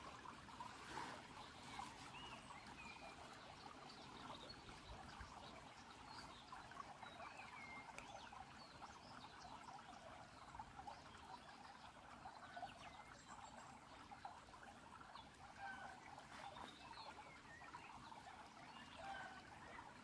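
Shallow stream trickling steadily over pebbles and stones, faint.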